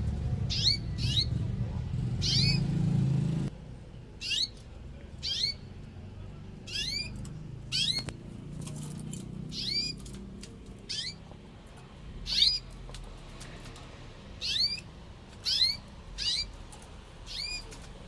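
Pet birds giving short, high, rising chirps, roughly one a second, over a low hum that stops about three and a half seconds in.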